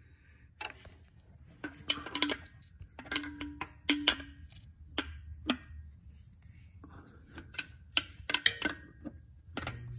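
Irregular metallic clicks and clinks of hand tools working on metal as a new oil pressure sender is threaded into the engine, some ringing briefly; the sender is stiff to thread in.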